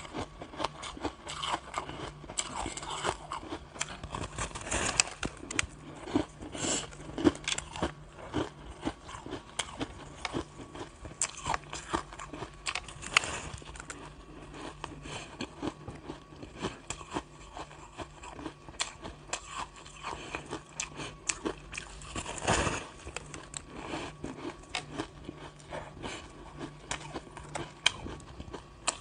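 Close biting and chewing of a block of packed shaved ice: a dense, continuous run of crisp crunches and crackles, with one louder crunch about three-quarters of the way through.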